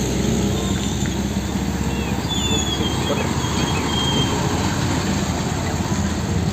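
Heavy vehicle engine running steadily with a dense low rumble, with a few bird chirps about two to three seconds in.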